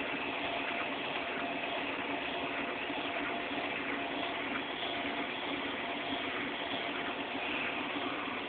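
Class 6 kg washing machine running steadily at the drain-and-spin stage of the rinse: an even motor hum over a constant rush.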